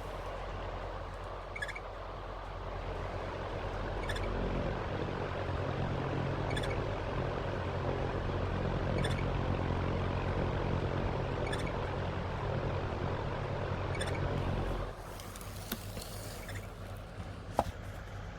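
Panasonic F-MX405-BC stand fan running in fixed-head mode with the abnormal hum it is under warranty claim for, a low drone over the airflow that swells for about a dozen seconds, then drops off suddenly about fifteen seconds in. Faint short chirps recur about every two and a half seconds.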